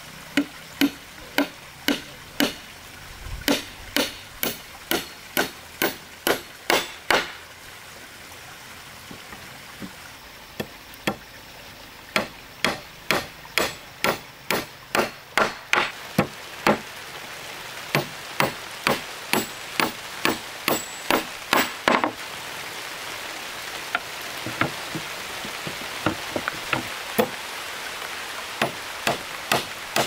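Hammer driving nails into wooden planks: runs of sharp blows about two a second, with short pauses between nails. A steady hiss behind grows louder in the second half.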